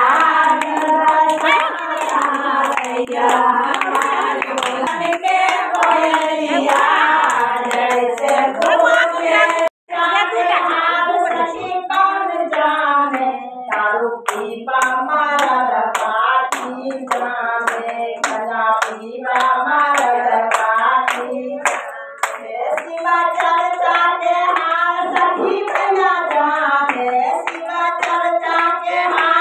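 Women singing a Shiv bhajan together, one voice leading the rest, with steady hand clapping to the beat. The sound breaks off for an instant about ten seconds in.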